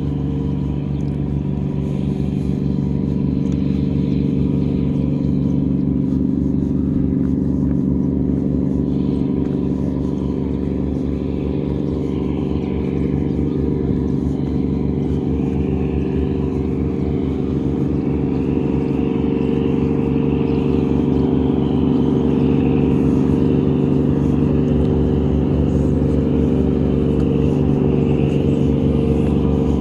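An engine running steadily: a constant low hum made of several fixed tones that gets a little louder about two-thirds of the way through.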